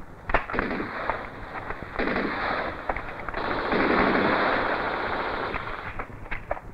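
Film battle gunfire: a few single shots, then from about half a second in long stretches of rapid automatic fire, loudest past the middle, thinning back to scattered single shots near the end.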